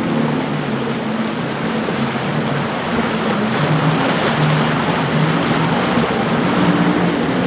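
Twin outboard engines of an Invincible 35 catamaran running at speed through choppy water: a steady engine hum under the rush of waves and spray.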